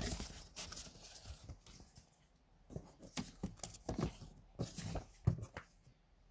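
Paper and cardboard being handled: printed sheets rustling and crinkling against a cardboard box, with irregular light taps and knocks in two bursts.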